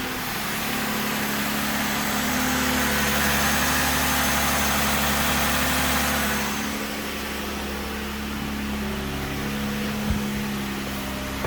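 Chrysler 3.6 Pentastar V6 idling on a cold start with its accessory belt removed, with the knock the owner takes for piston slap. It runs louder and harsher for a few seconds, eases off about halfway through, and there is one sharp click near the end.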